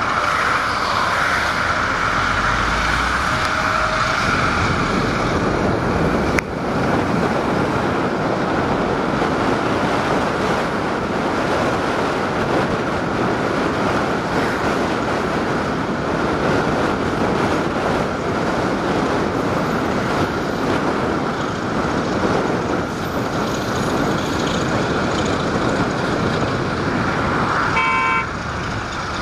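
Steady rumbling roar of a freight train of covered hopper wagons rolling past, with a brief pitched toot near the end.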